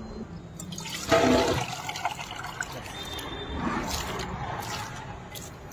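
Liquid poured from a mug into a large pot of biryani rice, splashing and trickling, loudest about a second in and then going on more softly.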